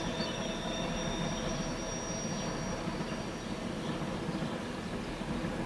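Train rolling through a curve on the Arlberg railway, a steady rumble with thin, high wheel-on-rail squeal tones that fade out about three seconds in.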